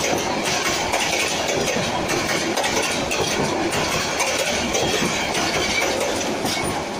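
Bangladesh Railway intercity passenger coaches passing close by at speed: a steady, loud rush of wheels on the rails with faint repeated clicks from the rail joints.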